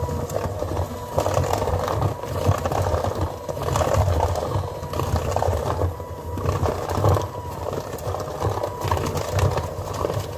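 Electric hand mixer running in a plastic tub, its beaters knocking and scraping unevenly against the sides as an egg is beaten into creamed butter for cookie dough.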